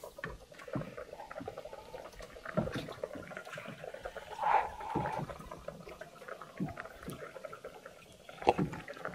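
Small clicks and knocks of a spoon and pot while fish soup is tasted, with a short slurp of broth about four and a half seconds in and a sharper knock near the end.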